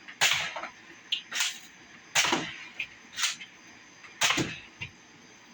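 Spring-powered Nerf Elite Mega Double Strike blaster firing Mega darts: five sharp shots about a second apart, with fainter clicks in between.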